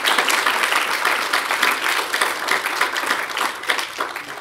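Audience applauding, the clapping tapering off near the end.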